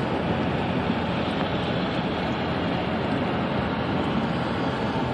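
Steady road noise inside a moving car's cabin: tyres on wet highway pavement, with the engine under it.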